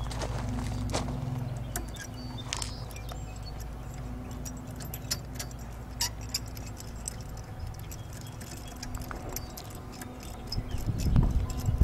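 Small metal clicks and clinks of forestay rigging hardware being handled and hooked up, over a steady low rumble of wind on the microphone that swells briefly near the end.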